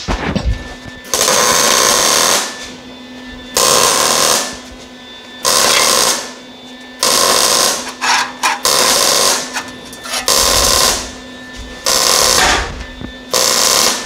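MIG welder stitch-welding sheet-metal body panels: about eight short crackling bursts of roughly a second each, with short pauses between. The wide gap is being welded in short stitches, not in one pass, because a single pass at this setting would blow a hole through the thin metal.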